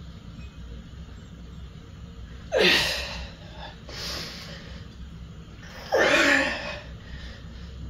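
A man's forceful, strained breaths as he curls a loaded EZ curl bar: two loud rushing exhales, about two and a half and six seconds in, and a softer breath between them.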